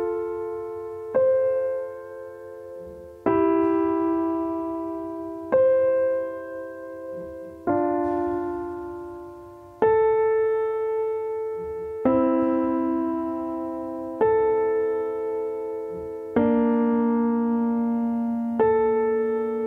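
Slow solo piano music: chords struck about every two seconds, each left to ring and fade before the next.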